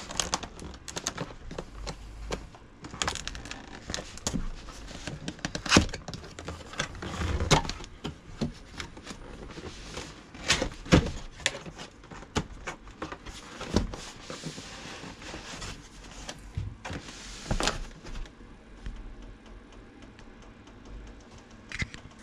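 Cardboard packaging being handled: an outer retail box opened and a plain cardboard inner box slid out, with irregular rustling, scraping and sharp knocks of card against card.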